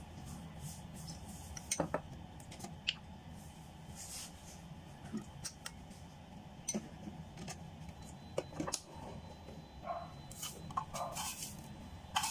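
Metal spoon clinking and scraping against a ceramic bowl in scattered light taps, a few sharper ones about two seconds in and near the end, over a low steady hum.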